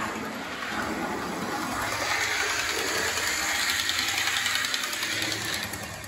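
Model train headed by an FS Class D445 diesel locomotive model running along the layout track, a steady mechanical whirr and rumble from its motor and wheels. It fades out at the very end.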